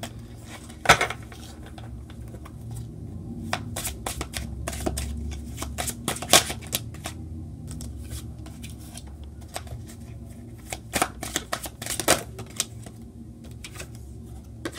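A tarot deck being shuffled by hand: a run of card flicks and snaps, with the loudest slaps about a second in, near the middle and near the end, and a card laid down on a marble tabletop, over a low steady hum.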